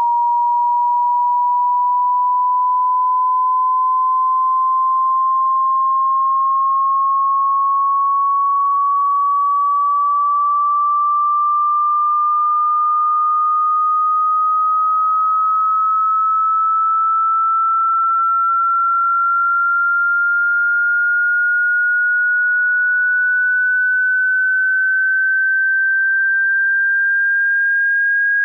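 A pure sine tone of a hearing-test frequency sweep, rising slowly and evenly in pitch from 950 to about 1,630 hertz.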